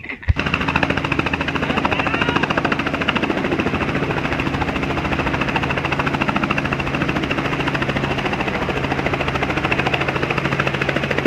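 Small two-bladed helicopter hovering just above the ground close by: a loud, steady, fast rotor chop over a constant engine hum. It starts suddenly a moment in.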